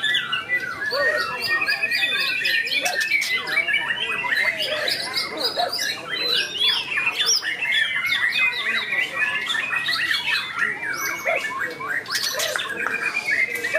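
Several caged white-rumped shamas singing at once in a contest: a continuous dense tangle of overlapping whistles, chirps and quick rising and falling notes.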